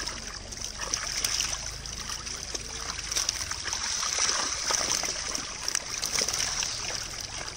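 Water splashing and trickling as a dense crowd of netted climbing perch thrash at the surface and a plastic basket scoops through them, water draining from the basket, with many small irregular slaps and splashes.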